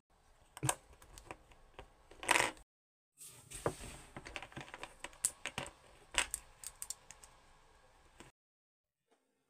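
LEGO bricks clicking and clattering as they are handled and pressed together, a quick run of sharp plastic clicks with a short louder rattle about two seconds in.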